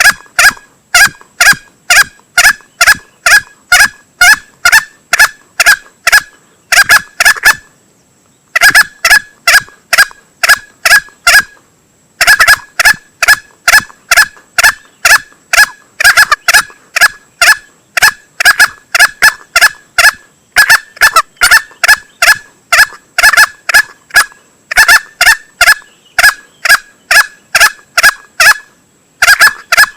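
Male green junglefowl calls used as a hunting lure: short, loud calls repeated about three a second in long runs, broken by brief pauses about a third of the way in and again near the end.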